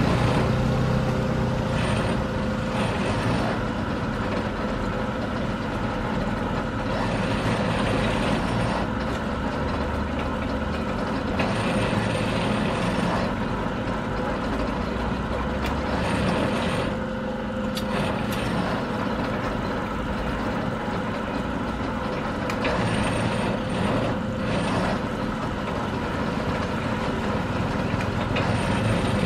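Steady running engine noise, like a motor vehicle, continuing without a break.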